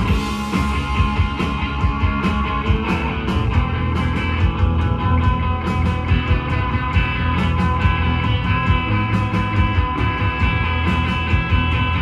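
Live rock band playing: electric guitar, bass guitar and drums, with a cymbal crash right at the start and steady cymbal strikes through the rest.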